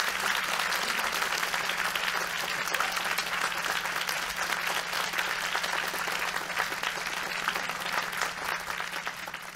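Audience applauding: dense, steady clapping that starts to die away near the end.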